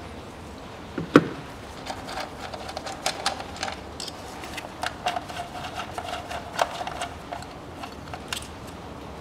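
Small metal clicks and taps of a socket tool turning out the ignition-coil hold-down bolts on a Hyundai ix35's engine, with one sharper knock about a second in.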